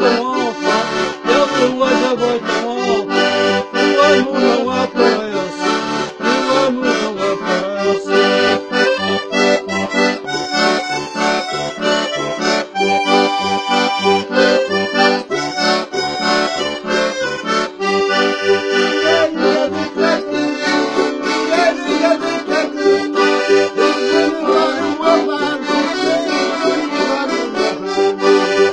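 Button accordion playing a traditional tune, with regular pulsing bass notes under the melody, and a small steel-string guitar strummed along with it.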